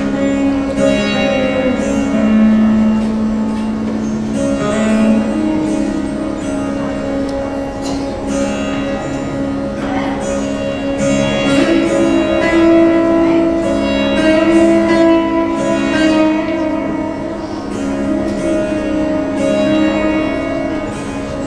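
Zitar, an electric sitar-style instrument, playing a slow Indian classical melody of plucked and bent notes over a steady drone, with the shimmer of sympathetic strings.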